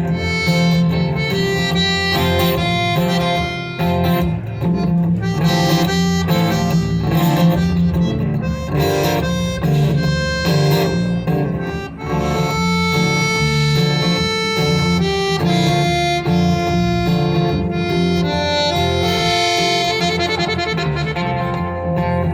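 Live folk band playing an instrumental break between verses: a lead instrument takes a solo over the band's steady accompaniment.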